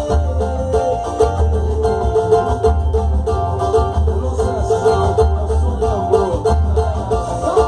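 Instrumental passage of a Brazilian pagode song: plucked banjo lines over a steady bass beat, with no singing.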